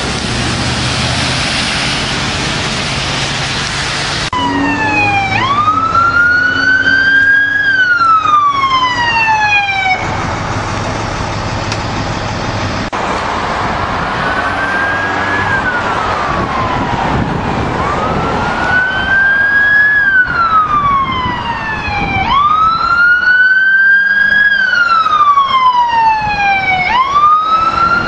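Fire truck siren wailing in repeated sweeps that rise quickly and fall slowly, one every four to five seconds, over a steady rush of road and engine noise. The siren starts about four seconds in.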